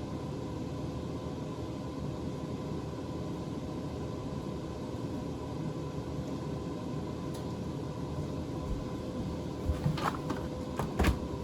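Steady background hum with a faint constant whine; several knocks and bumps near the end.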